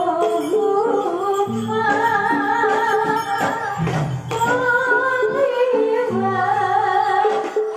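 Javanese gamelan music for a barongan and jathilan dance, played live and amplified through a sound system: a female singer holds a wavering, ornamented melody over deep drum beats that recur every second or two.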